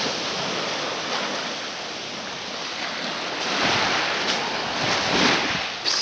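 Small Black Sea waves washing onto the shore, with wind on the microphone; the surf swells and eases in the second half.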